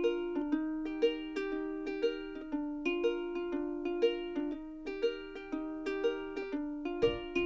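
Background music: a light plucked-string tune with a steady beat of about two notes a second. A low bass part joins near the end.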